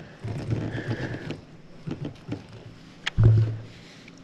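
Knocks and thumps on a plastic kayak as a landed largemouth bass is lifted aboard and handled, with a scatter of light knocks at first and the loudest, a short sharp click then a low thump, about three seconds in.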